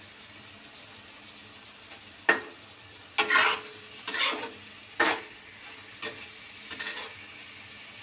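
Metal spatula scraping and clanking against a stainless-steel wok while stirring eggplant and minced pork. About six sharp strokes come from about two seconds in, over a faint steady hiss.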